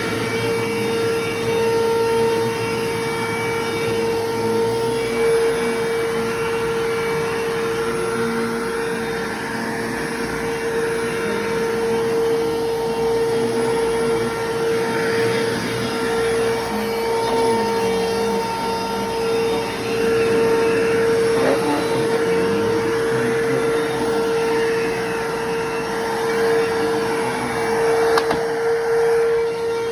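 Bissell Lift-Off bagless upright vacuum cleaner running steadily: a constant motor whine over the rush of suction, swelling and easing slightly as it works the floor.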